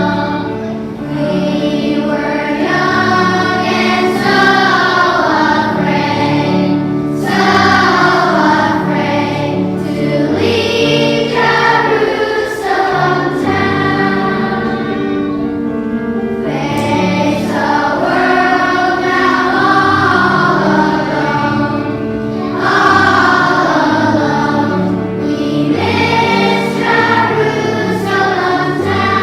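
Children's choir singing a song together with instrumental accompaniment.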